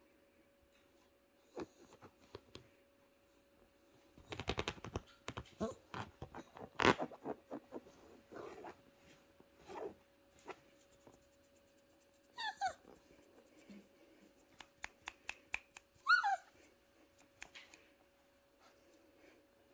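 Male Doberman puppy whimpering twice, each a short wavering whine that falls in pitch, about halfway through and again a few seconds later. Before that, a run of scratching and clicking as it scrabbles on the leather sofa, with a faint steady hum underneath.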